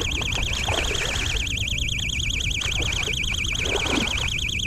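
A hooked fish splashing and thrashing at the surface as it is reeled in close, twice, the second time near the end. Over it a steady high warbling buzz, rapidly wavering in pitch, runs throughout, with a low rumble beneath.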